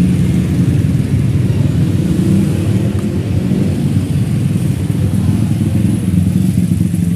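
Loud, steady bass rumble from a large carnival 'sound horeg' sound system being sound-checked, almost all of it deep low end.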